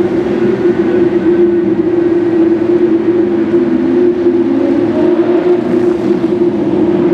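Lamborghini Aventador V12 engines running at steady revs inside a road tunnel, a constant, loud engine note that holds one pitch.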